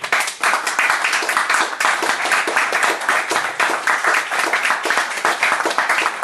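Audience applauding: many hands clapping at once in a dense, steady applause.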